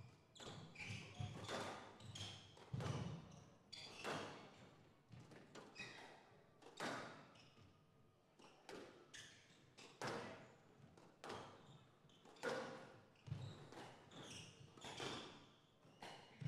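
Squash rally: the ball struck by rackets and smacking the walls roughly once a second, with short squeaks of shoes on the court floor in between.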